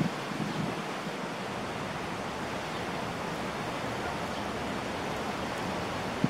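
Steady outdoor background hiss, with a few low bumps in the first second and a single sharp click near the end.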